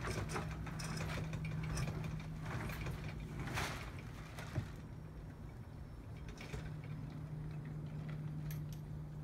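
Homemade sail furling unit on a kayak catamaran running as the sail is unfurled: clicking and rattling of the drum and lines with the sail cloth rustling, heaviest in the first four seconds, then a single sharp knock, over a steady low hum.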